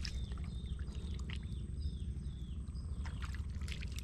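A bird calling in a quick run of short, high, falling chirps, over a steady low rumble.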